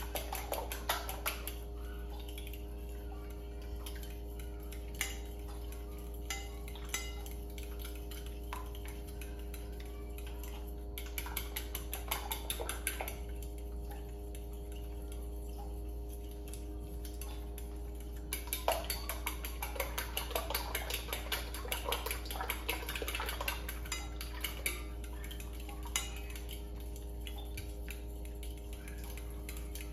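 Raw eggs being beaten in a bowl with a kitchen utensil: quick clicks and clinks of metal against the bowl, in bursts with short pauses between. A steady low hum runs underneath.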